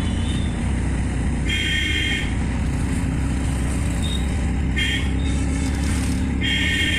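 Steady engine and road rumble of a moving vehicle in street traffic, with a vehicle horn honking three times: a honk of nearly a second about a second and a half in, a short toot about five seconds in, and a longer honk near the end.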